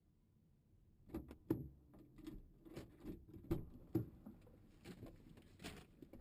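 A run of irregular clicks, rattles and knocks, starting about a second in and ending in a louder knock: handling noise inside a parked car.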